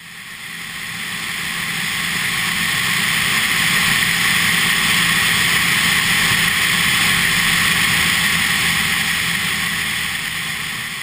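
Steady wind rush over a Cessna 172RG Cutlass's tail in flight, with the low drone of its four-cylinder Lycoming engine and propeller underneath. It fades in over the first few seconds and fades out near the end.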